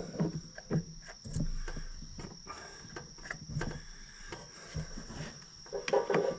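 Wrench and metal parts clinking and knocking in irregular clicks while battery cables are fitted to the terminals, over a steady high insect trill.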